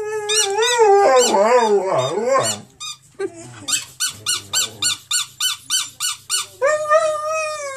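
Saluki giving long, wavering howl-like whines that glide up and down, a half-formed howl. In the middle comes a string of short squeaks, about three a second, before another long whine near the end.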